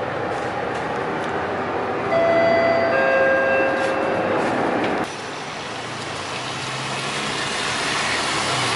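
City bus riding, heard from inside the cabin: steady engine and road noise, with a few steady high tones for about two seconds near the middle. About five seconds in it cuts to the street beside an SBS Transit bus, whose engine runs with traffic noise, growing louder.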